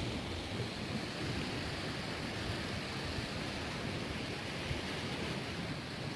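Steady wash of sea waves on a beach, with wind rumbling on the microphone.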